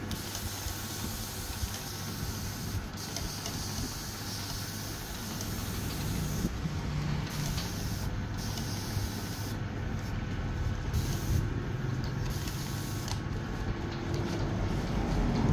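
Electric hair clipper running steadily with a hiss, the hiss dropping away briefly several times from about six seconds in.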